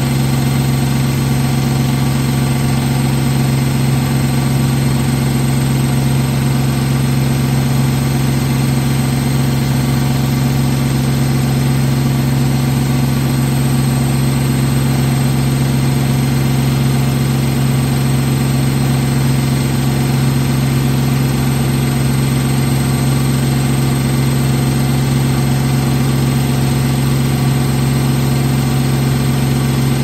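AEG Lavamat front-loading washing machine running late in a full wash programme, a loud, steady hum that holds one pitch without change.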